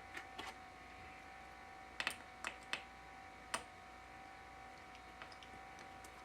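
Small irregular clicks of a Torx T8 screwdriver working the metal hinge screws of a MacBook Pro, several close together a couple of seconds in, over a faint steady hum.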